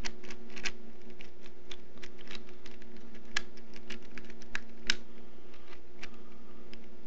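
Plastic clicking and clacking of a cake cube, a cheap 3x3 shape-mod twisty puzzle, as its layers are turned quickly through a sequence of moves: irregular clicks several a second, a few sharper than the rest. A steady low hum lies underneath.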